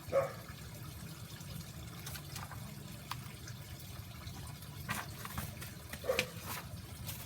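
Quiet, steady background noise with a few faint clicks and rustles, and a brief soft sound just after the start and again about six seconds in.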